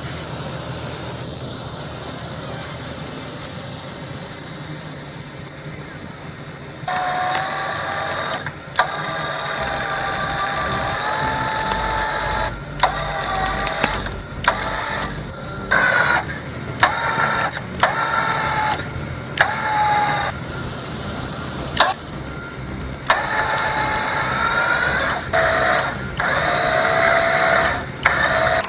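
A vehicle engine running steadily, then an electric winch whining in repeated short pulls: each pull starts and cuts off abruptly, and the whine's pitch shifts as the cable loads up against a stump.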